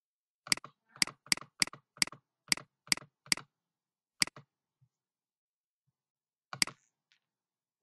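Sharp clicks of a computer mouse and keyboard in use, about ten in all: a quick run of eight, roughly two or three a second, then two single clicks a couple of seconds apart.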